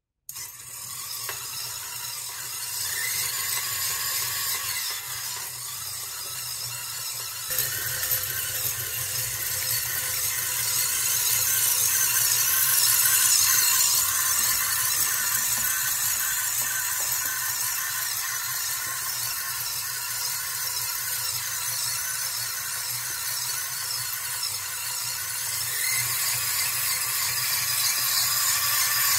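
Working model of a turbofan jet engine, switched on from its throttle box and running: a high whine with a rushing hiss. It gets louder with a jump about seven seconds in and swells again near the end.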